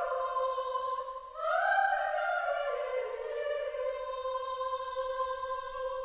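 Background music: a high sung line holding long notes, with no bass beneath it, swelling upward about a second and a half in.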